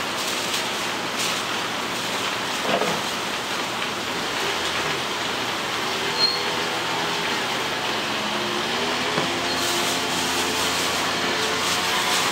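Eatery background noise: a steady rushing hiss, with faint distant voices in the second half and a single sharp clink about six seconds in.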